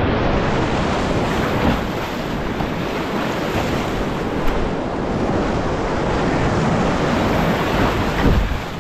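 Whitewater rapids at spring-flood high water, rushing loudly and steadily around a canoe running through them.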